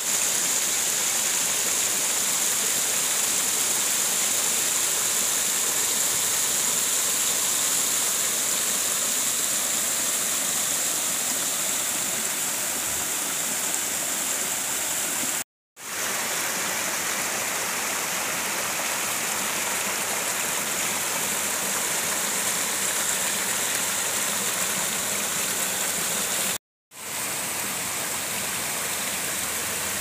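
Steady rush of falling water: the Dehena Ella waterfall, then stream water pouring over rocks close to the microphone. The sound drops out completely for a moment twice.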